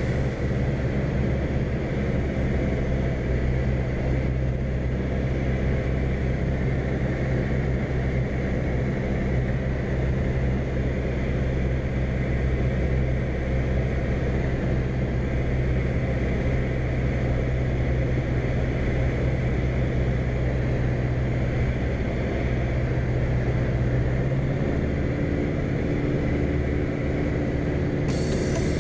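Robin HR200 light aircraft's piston engine and propeller droning steadily, heard inside the cockpit. Near the end the engine note shifts, with its lowest tone dropping away and higher tones coming in.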